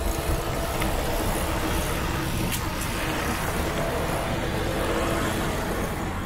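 Steady road and traffic noise of motor vehicles driving.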